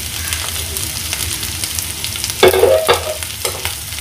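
Onions, ginger and green chillies sizzling and crackling in hot oil in a nonstick kadai while a silicone spatula stirs them. One brief, louder clatter of the spatula against the pan comes about two and a half seconds in.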